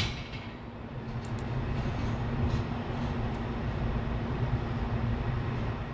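A sharp clunk, then a machine running steadily with a rumble and a constant hum, growing slightly louder about a second in.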